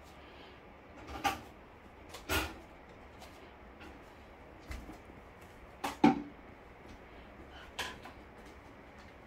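Several separate sharp household knocks and clatters, like cupboard or door handling, spaced a second or more apart; the loudest, a double knock, comes about six seconds in.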